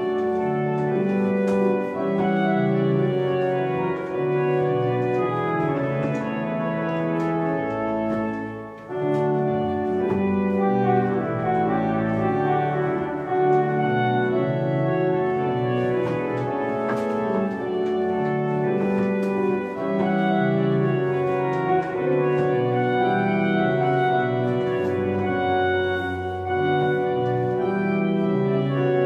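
Organ playing a lively gavotte, its tune on a trumpet stop, with a brief break between phrases about nine seconds in.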